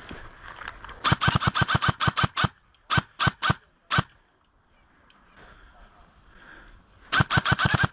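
ICS PAR MKIII electric airsoft rifle (S-AEG) firing: a rapid burst of about ten shots at roughly seven a second, then four single shots in quick succession, then after a pause another rapid burst of about eight shots near the end.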